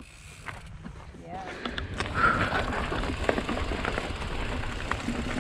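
Loose rock and dirt crunching and clattering on a rocky mountain-bike trail, starting about two seconds in, over a low rumble.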